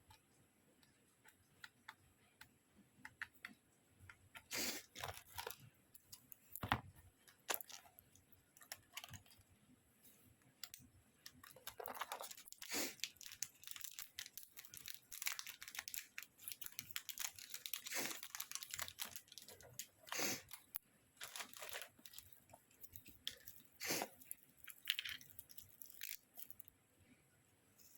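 Packaging being opened and handled by hand: irregular rustling, crinkling and tearing of paper or plastic wrap with scattered clicks and taps, busiest in the middle stretch.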